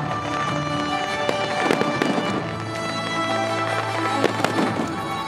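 Aerial fireworks shells bursting: a cluster of sharp bangs about a second and a half in and a couple more just after four seconds, over steady background music.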